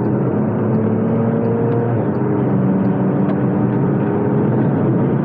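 Porsche Macan Turbo's twin-turbo V6 with a Soul Performance resonated muffler bypass exhaust, accelerating hard under kickdown. Its pitch climbs, drops at an upshift about two seconds in, climbs again, and shifts again near the end.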